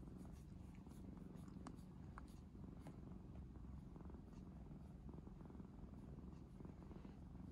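A cat purring steadily, low and faint, while its head is being stroked.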